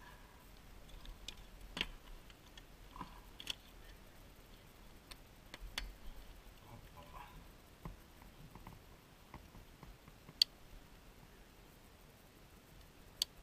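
Faint, scattered clicks and light knocks of gear being handled at a parked motorcycle, the sharpest a single click about ten seconds in and another near the end as hands work the strap buckle of a studded leather saddlebag.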